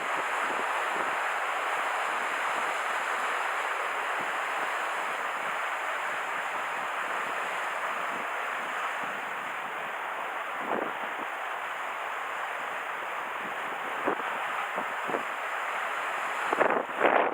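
Steady wash of waves on the bay shore under strong wind, with wind gusts buffeting the microphone a few times, most heavily near the end.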